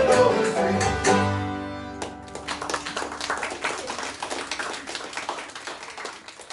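String band of acoustic guitar, banjo, fiddle and upright bass plays its last bars and ends on a chord that rings out and dies away about two seconds in. Scattered applause follows, thinning out near the end.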